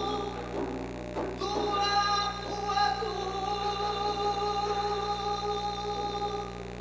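Live music: a long sustained note held for about five seconds, with a few sharp percussion strikes in the first second and a half, fading near the end.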